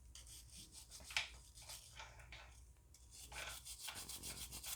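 Rubbing strokes of a Nintendo 3DS circuit board being wiped down to clean off liquid damage. The strokes are faint and rapid, with one sharper stroke about a second in, and they come thicker over the last second and a half.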